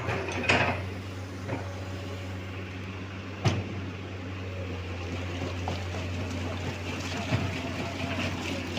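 Heavy diesel engine of the construction machinery running steadily at a low, even speed, with a few sharp knocks, the loudest about three and a half seconds in.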